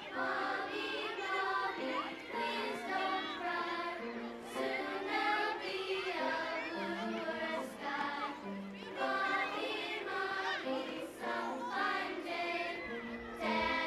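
Soundtrack music: a choir of voices singing, several lines at once.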